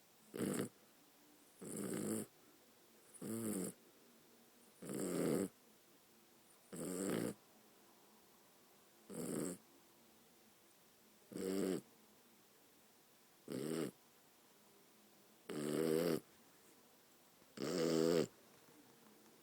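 Maltipoo snoring in its sleep: about ten short snores, each under a second, coming evenly one every two seconds or so.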